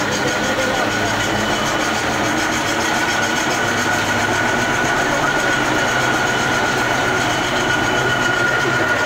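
Rotary veneer peeling lathe running, a poplar log turning against the knife as a thin sheet of veneer peels off. It makes a steady, loud mechanical clatter with a constant high tone.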